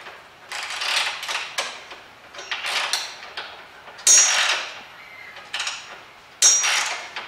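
Socket ratchet clicking in uneven bursts of strokes as a 19 mm bolt on a tow bar is wound in, with metal tool-on-bolt knocks; the loudest strokes come about four seconds in and again near the end.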